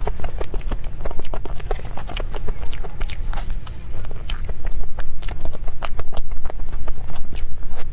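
Close-up chewing of a crepe towel-roll dessert: a quick, irregular run of mouth clicks and smacks.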